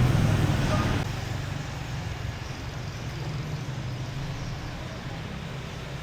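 A motor vehicle's engine, loud and close for about the first second, then fading away as it passes, leaving a steady hum of street traffic.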